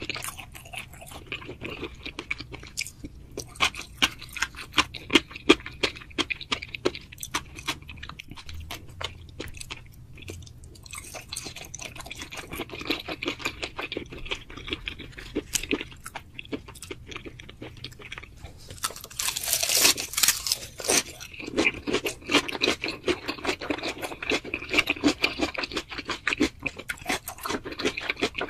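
Close-miked mukbang eating: a person chewing and crunching food, with many sharp crunchy clicks throughout and a louder stretch a little over two-thirds of the way through.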